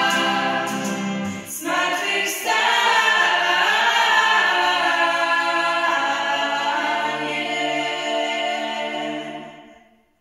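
Small mixed vocal group singing the closing bars of a worship song in harmony, with a few acoustic guitar strums in the first couple of seconds. They end on a long held chord that fades out near the end.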